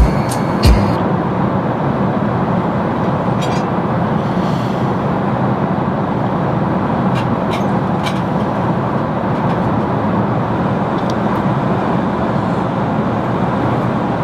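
Steady roar of an airliner cabin in flight, with a couple of low knocks in the first second and a few faint clicks later.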